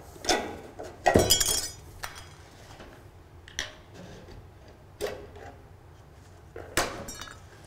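Hand metal snips cutting relief cuts into a sheet-metal valley flashing: about five sharp metallic snips and clinks, the loudest a little over a second in, with a brief ring from the sheet.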